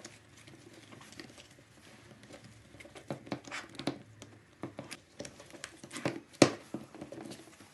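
Top rubber pad being fitted back onto a Schmalz VCBL-K1 CNC vacuum pod by hand: irregular soft taps, clicks and rubbing of rubber against the pod. The taps come thicker from about three seconds in, and the sharpest one is about six and a half seconds in.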